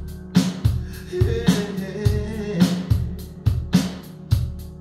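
Pop music with a steady drum beat and deep bass, played through a pair of B&W DM330 2½-way floorstanding loudspeakers and heard in the room. A held melody line comes in about a second in and drops out a little after the middle.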